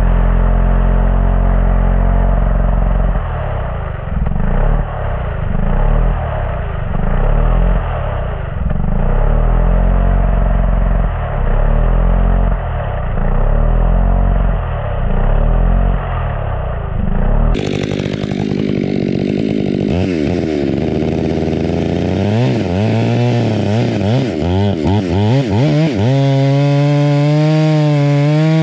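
Stihl MS 500i two-stroke chainsaw with a square-ground semi-skip chain cutting into a stump, its engine note sagging and recovering every second or so as the chain bites into the wood. About two-thirds of the way in the sound turns brighter and closer; the revs swing up and down, then hold a steady high pitch while it cuts.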